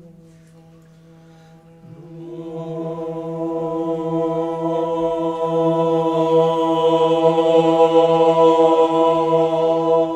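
Choir singing a held chord in harmony as a warm-up. A quiet low note sounds at first, then more voices swell in about two seconds in, grow louder and hold the chord at steady pitch.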